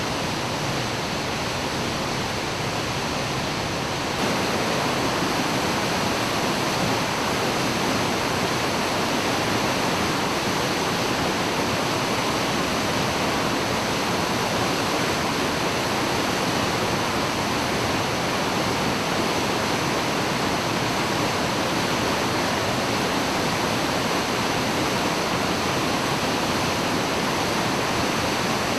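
A 30 m plunge waterfall crashing down in a steady, dense rush of water; the sound grows slightly louder about four seconds in and then holds even.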